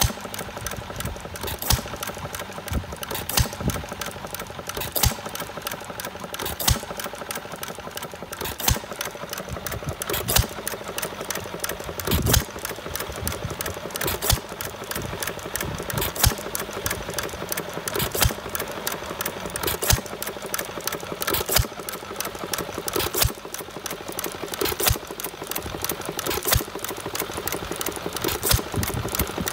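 1910 Brownwall 1 hp air-cooled hit-and-miss engine running, with a sharp firing bang about every two seconds and a fast mechanical clatter between as it coasts on its flywheels. Its governor lets it fire only when its speed drops.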